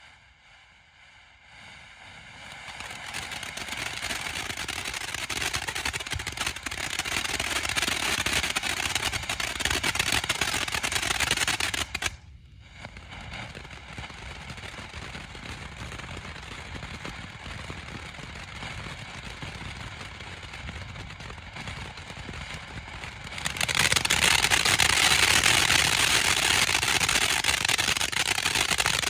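Spirit of Freedom consumer firework fountain spraying sparks: a dense rush of rapid crackling that builds up over the first couple of seconds. It falls off sharply about twelve seconds in and carries on more quietly, then grows louder again for the last five seconds or so.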